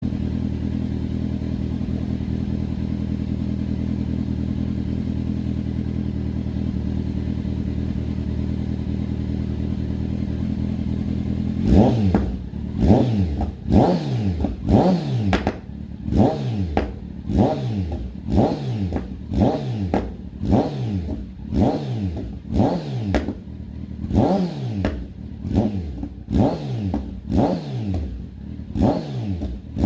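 Kawasaki Z900 inline-four motorcycle engine idling steadily, then blipped over and over from about twelve seconds in, about one sharp rev a second that falls back each time, with the exhaust crackling and popping as the revs drop off.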